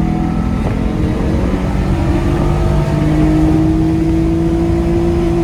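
Acura TL's V6 engine pulling hard under acceleration, breathing through a custom cold air intake, its pitch climbing slowly and steadily.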